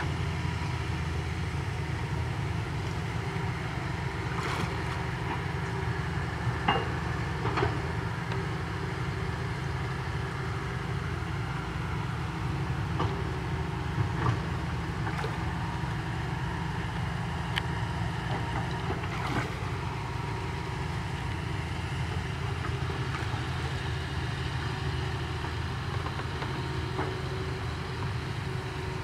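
Steady low engine-like rumble with a few light splashes and ticks of water as someone wades through a muddy ditch.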